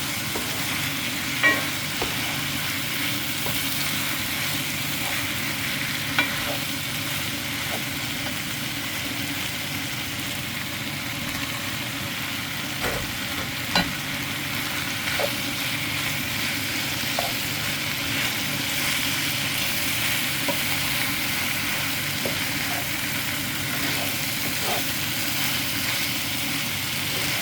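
Jeyuk-bokkeum, spicy stir-fried pork, sizzling and being stirred in a pan: a steady frying hiss, with a few sharp clicks scattered through it.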